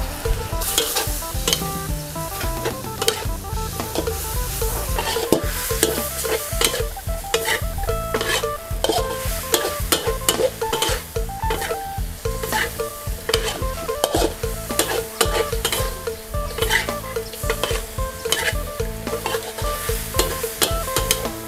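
Metal spatula scraping and knocking against a large steel wok as a spicy eel stir-fry with holy basil is tossed, the food sizzling steadily underneath. The strokes come quickly and irregularly.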